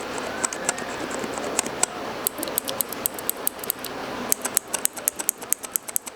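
Keyboard switches on a switch tester being pressed and released one after another, giving a run of sharp clicks that come several a second in the second half, over steady background noise.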